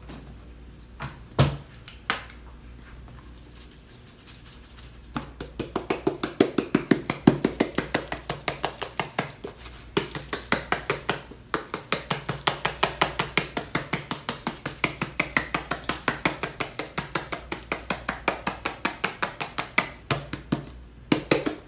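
Spice grinder being twisted by hand over a tray to grind Italian seasoning: a quick, even run of clicks, about five a second, starting about five seconds in, after a couple of single knocks.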